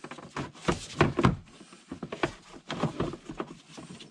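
Plastic filter housing in a Porsche Cayman being forced out of a tight fit: a string of irregular knocks, clicks and scraping plastic.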